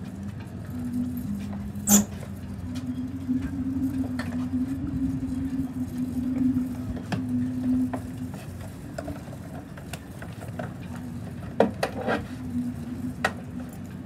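Wind blowing across the microphone, with a wavering low hum that fades in and out. Sharp knocks about two seconds in and a cluster of them near the end.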